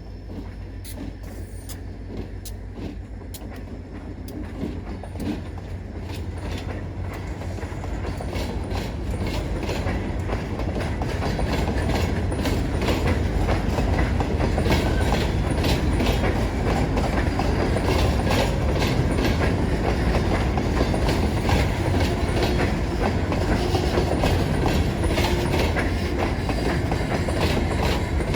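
Freight train approaching and rolling past, growing louder over the first dozen seconds and then holding at a steady rumble. Railcar wheels click over the rail joints throughout.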